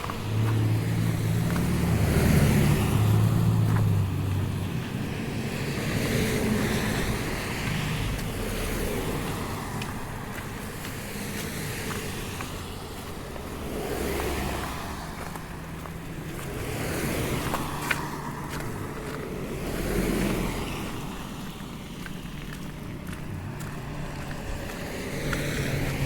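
Road traffic passing one vehicle after another on a wet street, each swelling up and fading as it goes by. In the first few seconds a heavier engine runs low and steady.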